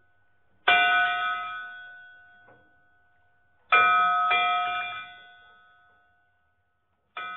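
A bell struck three times, about three seconds apart, each strike ringing and slowly fading, with a lighter second stroke just after the middle one.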